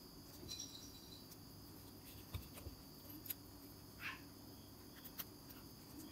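Faint, scattered small clicks and a brief light scrape as a resin watch band and its metal fittings are worked into place on a G-Shock watch case, over a steady faint hum and thin high whine.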